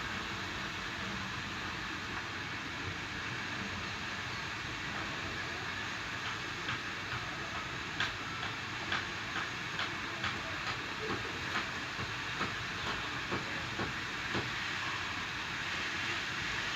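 Food sizzling in a frying pan, a steady hiss. From about a third of the way in, a spatula knocks against the pan roughly twice a second as the food is stirred.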